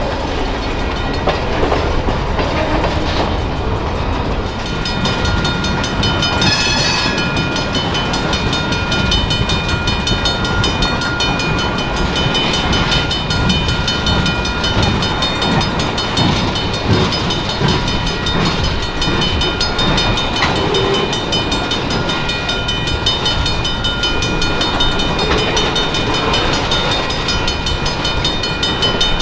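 Freight cars (covered hoppers and tank cars) rolling past close by: a steady rumble of wheels on rail with uneven clickety-clack over the joints. From about six seconds in, several steady high tones ring on over it.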